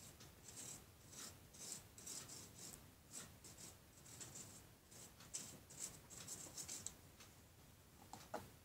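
Faint repeated scratchy rubbing strokes of a glue stick on cardboard, as glue is applied to the panel's cells, followed by a single small click near the end.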